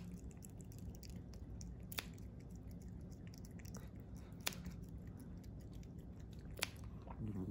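Cat nail clippers snipping a cat's claws: four sharp clicks about two seconds apart, over a low steady hum.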